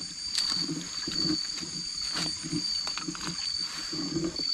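Night insect chorus, a steady high trill, with a run of low croaks from frogs, about two or three a second.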